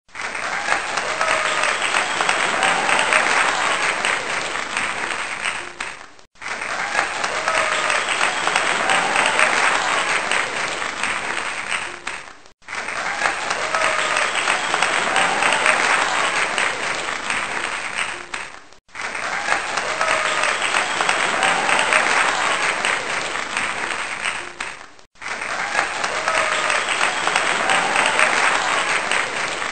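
Crowd applause, one clip of clapping about six seconds long played over and over. Each repeat fades out, drops away briefly, and starts again.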